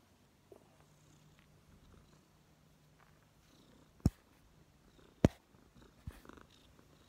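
Domestic tabby cat purring steadily, a faint low rumble, broken by two loud sharp knocks about a second apart and a softer one shortly after.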